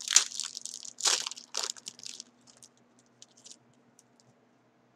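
Wrapper of a Fleer Flair hockey card pack being torn open and crinkled by hand: a few sharp rips in the first two seconds, then lighter crackling that dies away about three and a half seconds in.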